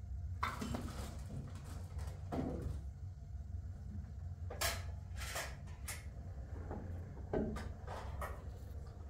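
Kitchen clatter: a series of separate knocks and clinks, like cupboard doors and dishes being handled, over a steady low hum.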